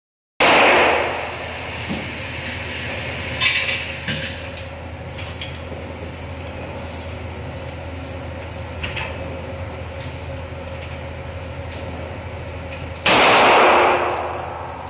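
Two shots from a Beretta 92A1 9mm pistol, about half a second in and again near the end, each loud enough to overload the recording and ringing out in an indoor shooting range. Fainter sharp bangs fall in between over a steady low hum.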